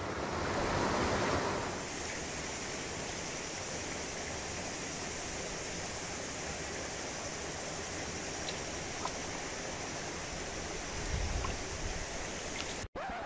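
Mountain stream water running over rocks, a steady rushing sound, a little louder in the first couple of seconds.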